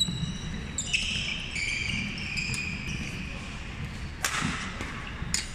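Badminton rally: sharp cracks of rackets striking the shuttlecock, one right at the start, another about four seconds in and another near the end, among high squeaks of court shoes on the hall floor.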